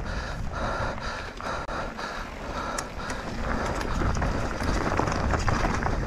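A mountain-bike racer panting hard, about two breaths a second, over wind rumble and the rattle and clicks of the bike on rough, stony ground, picked up by a camera on the bike or rider.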